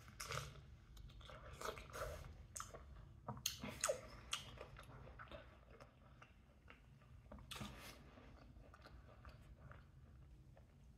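A person chewing and biting mango pieces, mouth noises close to the microphone: a string of faint, soft wet clicks and smacks, busiest over the first five seconds, with another cluster about seven and a half seconds in.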